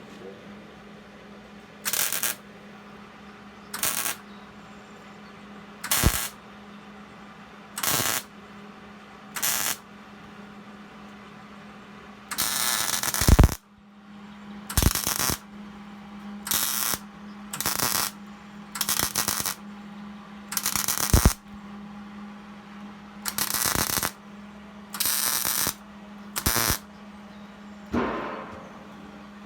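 Electric arc welding in a string of short welds: about seventeen separate bursts of welding noise, most under a second long, one every second or two, with one longer weld of about a second and a half near the middle. A steady low hum runs underneath.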